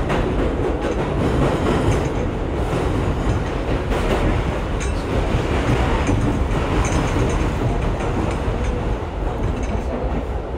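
Inside a moving R62A subway car: the steady rumble of steel wheels running on the rails, with occasional clacks as the wheels cross rail joints.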